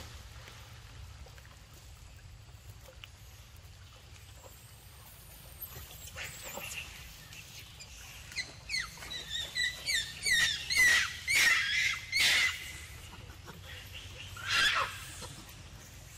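Macaques squealing: a run of short, high calls that come faster and louder from about six seconds in, then one more loud squeal near the end.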